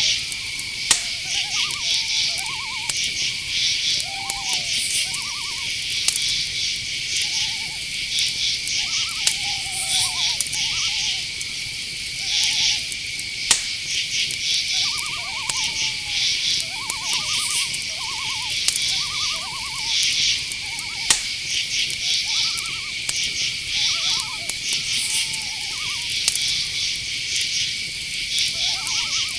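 Night-forest ambience: crickets and other insects chirping and droning steadily, with short owl calls repeating throughout. A few sharp clicks stand out, about a second in, around thirteen seconds and around twenty-one seconds.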